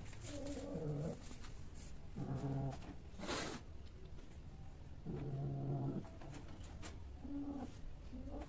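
A cat giving low, drawn-out yowls, four times, each lasting half a second to a second. A sharp clatter comes about three seconds in.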